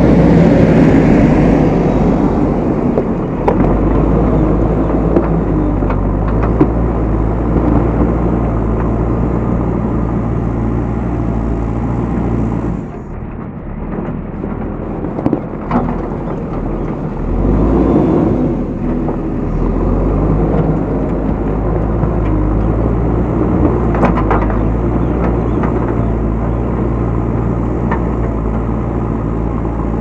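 A JCB 3DX backhoe loader's diesel engine runs steadily close by. It drops back for a few seconds near the middle, then picks up again, with a few sharp knocks over it.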